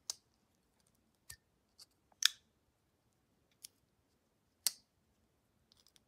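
CJRB Feldspar folding knife being flipped open and folded shut: about six short, sharp clicks at uneven intervals as the blade swings on its ball-bearing pivot and snaps into place, the loudest a little over two seconds in.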